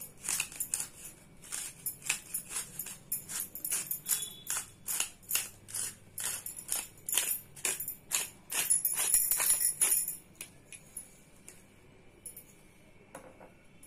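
Himalayan salt grinder bottle being turned over a bowl: a long run of crisp rattling, crunching strokes, about three a second, as salt crystals are ground out. The grinding stops about ten seconds in.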